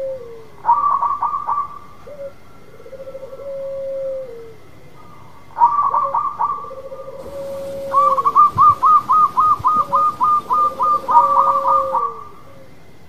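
Zebra dove (perkutut) song: low trilling coos that end in a held, falling note, repeated about every three seconds. Between them come runs of quick, higher staccato notes, the longest about four seconds long at roughly four notes a second.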